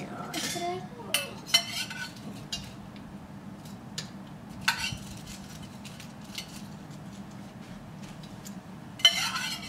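Miniature stainless-steel toy pots and a metal spoon clinking and scraping as a child stirs and spoons play food, in scattered bursts with a louder clatter near the end.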